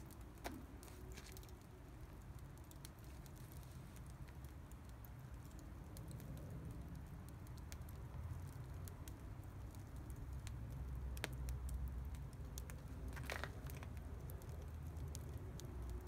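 Wood fire crackling in a metal fire pit, with scattered sharp pops, a few louder ones in the second half, over a low steady rumble.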